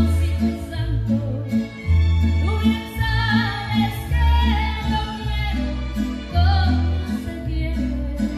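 A woman singing a regional Mexican song into a microphone, amplified through a PA speaker over a recorded backing track with a steady bass line and a repeating off-beat accompaniment.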